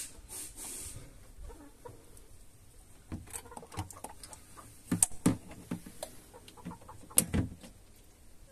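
Domestic hens clucking: an irregular run of short clucks and sharp clicks, loudest in the middle and again near the end.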